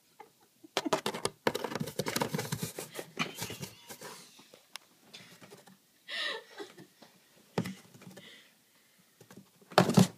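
A kitten's claws scratching and scrabbling at the inside of a cardboard pet carrier, a fast run of scratchy clicks for the first few seconds, then scattered scrapes and taps.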